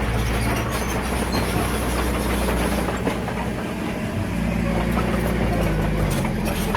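Bulldozer's diesel engine running under load, with the steel tracks clanking and rattling. The engine note shifts about two-thirds of the way in.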